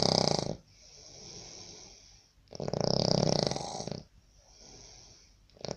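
A sleeping person snoring: loud, rattling snores about every three seconds, with a quieter breath between each one.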